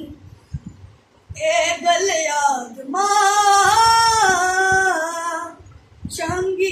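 A boy singing a Punjabi Christian hymn (Masihi geet) unaccompanied. A long phrase with held, wavering notes begins about a second in, and a new phrase starts near the end.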